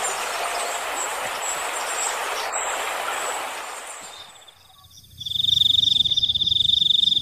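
A soft outdoor hiss fades away, and about five seconds in a frog starts a high, rapid trilling call that keeps going steadily.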